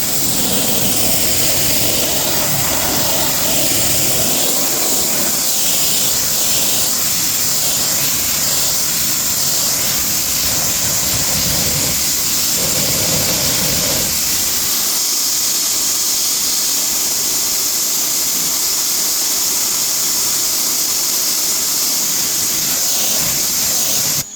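Strong jet of water hissing steadily as it rinses foamed tire cleaner off a truck tire and wheel. The lower splashing thins out a little over halfway through as the spray moves, and the hiss cuts off sharply at the end.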